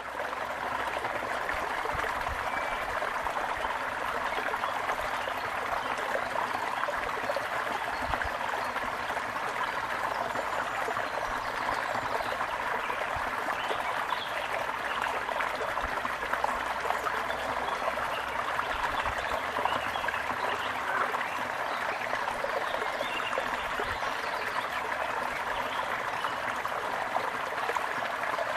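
Running water flowing steadily, like a small stream, at an even level throughout.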